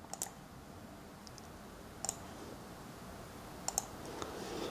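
Faint computer mouse clicks, a few short sharp clicks spaced a second or two apart, as points are placed to draw lines in drawing software.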